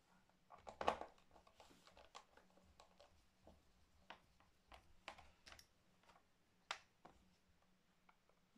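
Faint, irregular clicks and taps of plastic and metal laptop parts being handled during reassembly, with a louder knock about a second in and a sharp click near the end.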